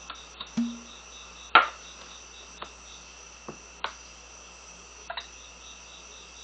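Cork stopper being worked out of a glass bourbon bottle with a short squeak, then a sharp pop as it comes free about a second and a half in. Light clicks and knocks follow as the bottle and a tasting glass are handled on the wooden bar for the pour, over a steady high-pitched chirping.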